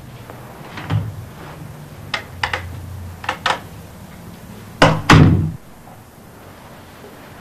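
Door sounds: a knock about a second in, several quick sharp knocks in pairs, then two loud, heavy thuds about five seconds in, the loudest sounds here.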